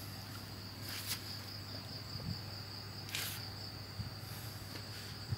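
Crickets trilling steadily in the background, a continuous high-pitched whir, over a low hum, with a couple of brief rustles about one and three seconds in.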